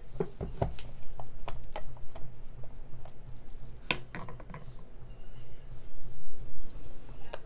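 Plastic yogurt tub being handled and its lid worked open: scattered clicks and knocks of plastic, the sharpest about four seconds in, over a low steady hum.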